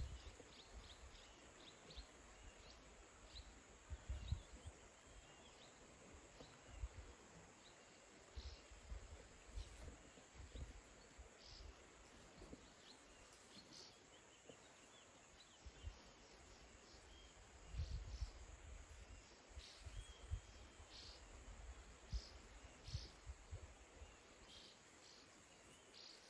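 Faint rural ambience: a steady high insect drone with short high chirps scattered through it, and irregular low rumbles on the microphone.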